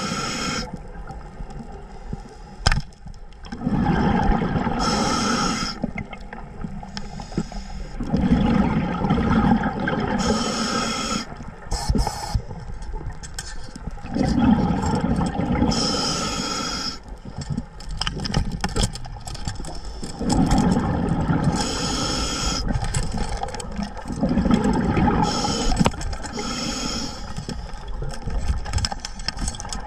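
Underwater recording: a single sharp snap about three seconds in, a band-powered speargun firing, followed by churning water noise that swells and fades every few seconds.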